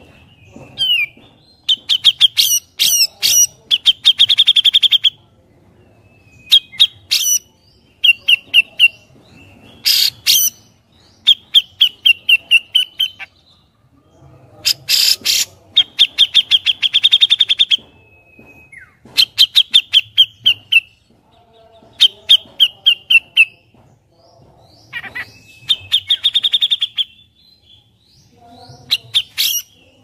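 Grey-cheeked bulbul (cucak jenggot) singing: runs of rapid, sharp, high chirps, each run lasting one to two seconds, repeated with short pauses between them.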